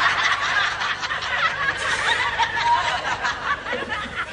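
Studio audience laughing, many voices at once.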